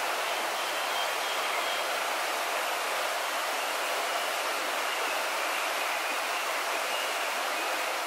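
Steady, even rushing of a shallow jungle stream's flowing water.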